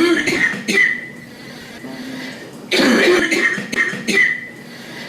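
A girl coughing in fits: a few coughs right at the start, then another fit of four or five coughs about three seconds in.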